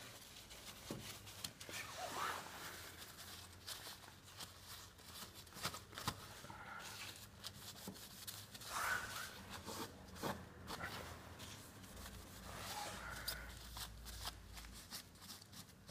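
Paper towel rubbing and scuffing over a scooter's side stand as a white cream is spread on it: faint, irregular rustling and scratching with small clicks.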